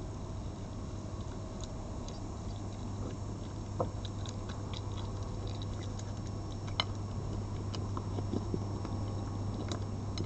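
Red fox eating from a plate of meat: scattered small clicks and ticks, with two sharper clicks about four and seven seconds in, over a steady low hum.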